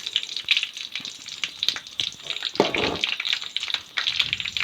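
Tempering of spices frying in hot coconut oil in a pan: a steady sizzle with fine crackling.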